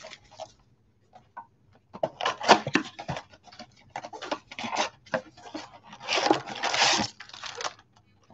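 Crinkling and rustling of plastic trading-card pack wrappers and cards being handled. It comes in three crackly bursts separated by short pauses.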